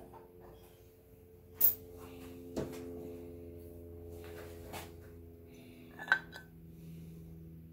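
Metal parts of an NP231 transfer case clanking and clicking as a separated case half is lifted and handled: a few sharp knocks, the loudest a little under two seconds in and again just after six seconds, over a steady background hum.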